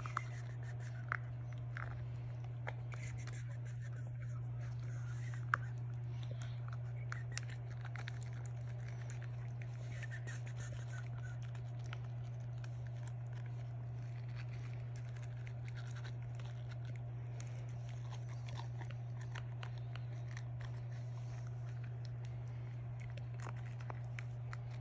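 A small toothbrush scrubbing a Wire Fox Terrier puppy's teeth: soft scratching and small clicks, under a steady low hum.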